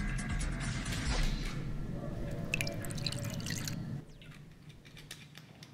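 Liquid being poured and dripping into a glass tumbler, with a cluster of light clicks about three seconds in. Under it runs a low steady hum that stops about four seconds in.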